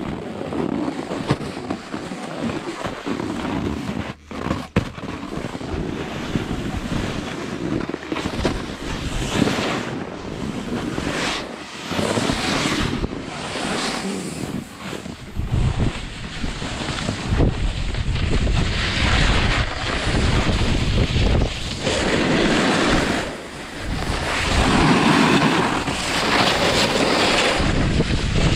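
Wind buffeting the camera microphone and the rider's edges scraping over packed snow on a downhill run. The hiss swells again and again with the turns and grows stronger, with more low rumble, about halfway through as the speed picks up.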